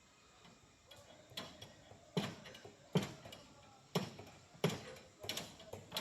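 Repeated hammer blows on a building site: a series of sharp knocks, a little more than one a second, starting about a second in.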